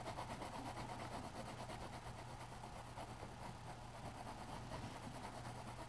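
Coloured pencil scratching on drawing-pad paper in quick, even back-and-forth colouring strokes, faint and steady.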